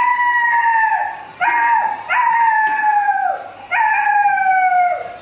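A boy imitating an animal call with his voice: four drawn-out calls, each sliding down in pitch, the second one short.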